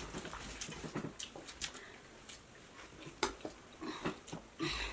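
Scattered light clinks and taps of tableware being handled, some faint, a few sharper.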